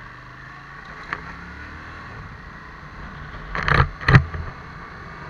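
A moving road vehicle's steady low engine and road rumble with wind noise on the mounted camera. There is a small click about a second in and two loud knocks in quick succession about four seconds in.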